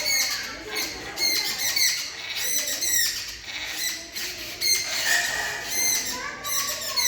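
Birds chirping busily: many quick, high chirps and short pitch glides, overlapping.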